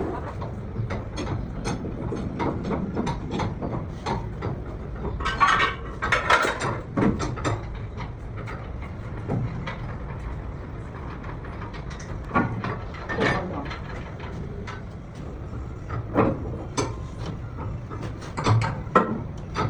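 Workshop metalwork: scattered clicks, knocks and ringing metal clanks, irregular and unevenly spaced, over a low steady hum.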